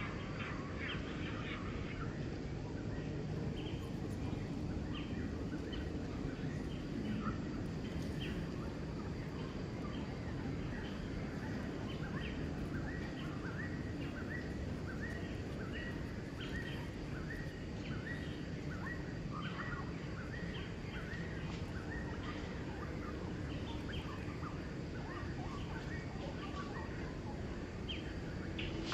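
Outdoor ambience: a steady low background noise, with small birds chirping over it in many short, high calls, several a second through the middle stretch.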